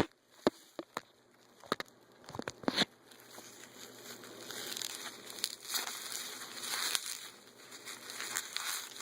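Packaging being opened and handled by hand: a few sharp clicks and taps in the first three seconds, then steady crinkling and rustling.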